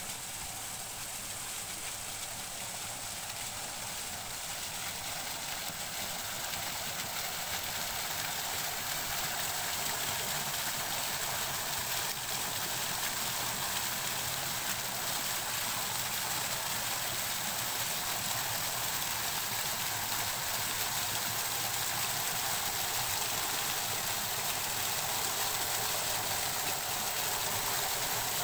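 Decorative fountain's water jets and falling sheet of water splashing steadily into its basin, growing gradually louder.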